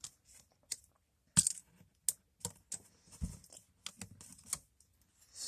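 Irregular sharp clicks and taps with light rustling, about a dozen over a few seconds: tarot cards being handled and laid down.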